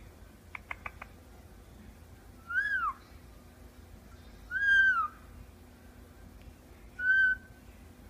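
Indian ringneck parakeet whistling: three short clear whistled notes about two seconds apart, each rising then falling in pitch, after a few quick soft clicks about a second in.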